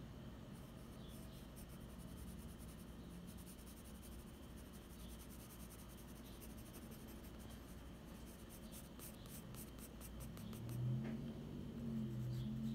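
Graphite pencil scratching on sketchbook paper in quick hatching strokes, with a fast run of strokes shortly before the end. In the last couple of seconds a low hum comes in, louder than the scratching.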